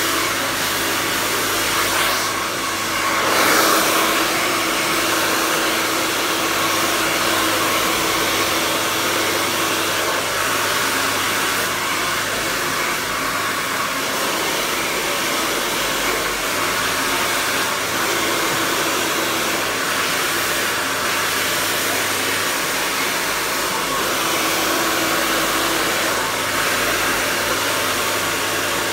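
Handheld hair dryer blowing steadily, as in a salon blow-dry. It swells briefly louder about three seconds in.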